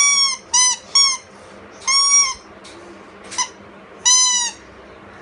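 A child sounding a small instrument in short toots, about six of them, all on the same high note, some clipped short and some held about half a second.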